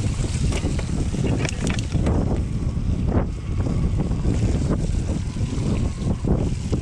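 Mountain bike riding over a rough trail: wind buffeting the camera microphone over a steady rumble of tyres, with frequent short knocks and rattles from the bike.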